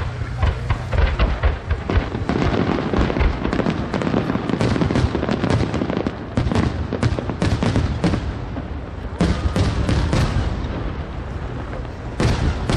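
Starmine barrage of aerial firework shells: a rapid, dense string of bangs and crackling bursts. It thins out briefly around nine seconds in, and a loud cluster of bangs comes near the end.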